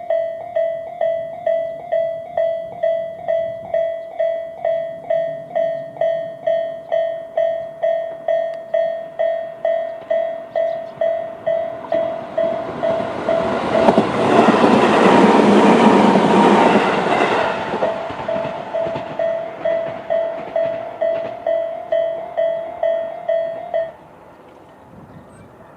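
Japanese level-crossing electronic warning bells dinging about twice a second while a Tobu 20400-series electric train passes over the crossing, its rush of wheels swelling up over the bells in the middle and fading away. The bells cut off near the end once the train has cleared.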